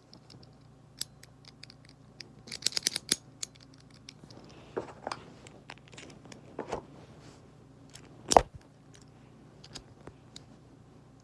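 Packaging and small parts of a GoatGuns miniature model gun kit being handled: scattered clicks and snips, with a quick run of clicks about two and a half seconds in and one sharp click a little past eight seconds.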